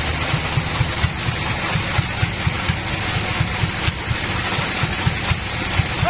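Band sawmill's engine running steadily at idle, with a rapid, even low pulse of about four or five beats a second under a continuous hiss.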